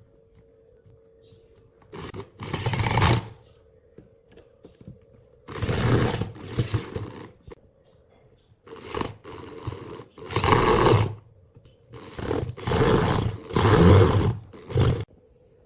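Woodworking power tool cutting into wood in repeated bursts of one to three seconds, with short pauses between passes, over a faint steady hum.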